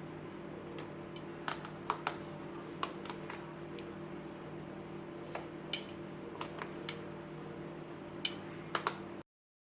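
Sliced okra being tossed in a bowl of cornmeal: scattered light clicks and taps over a steady low hum. All sound stops suddenly near the end.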